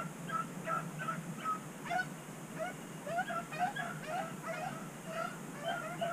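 Rabbit hounds whining and yipping in a steady run of short, wavering calls, two or three a second.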